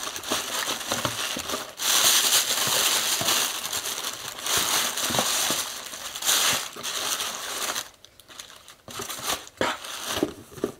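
Tissue paper and plastic wrapping crinkling and rustling as a pair of sandals is unwrapped from a shoebox, thinning to a few light rustles near the end.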